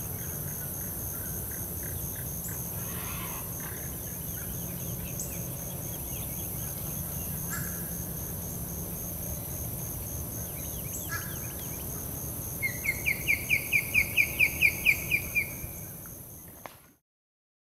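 A bird gives a rapid run of about fifteen short, loud notes, about five a second, lasting about three seconds, over a steady high-pitched background drone and fainter scattered bird calls. The sound then fades and cuts off near the end.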